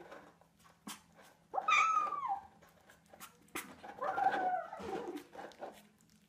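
Kitten squeaking while it eats: one loud, high squeak about a second and a half in that falls in pitch, then fainter squeaks around four to five seconds in.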